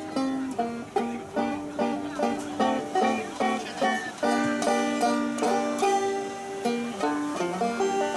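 Five-string banjo fingerpicked with metal fingerpicks, playing a quick run of bright plucked notes in a steady rhythm.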